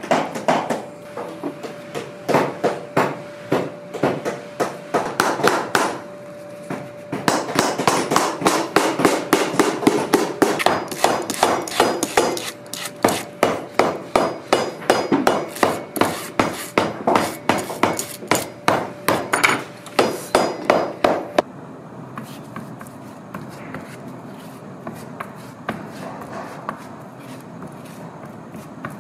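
Shoemaker's hammer tapping a boot's bottom in quick, even strokes, several a second, with a short break about six seconds in. The hammering stops suddenly about twenty-one seconds in, leaving faint steady workshop noise.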